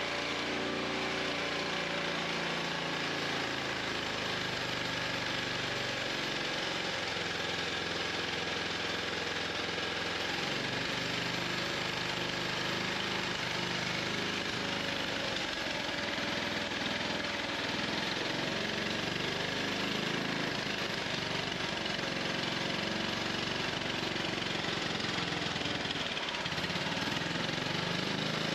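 Carburetted petrol engine running unevenly, its speed wandering up and down, run with the choke closed to make up for a vacuum leak.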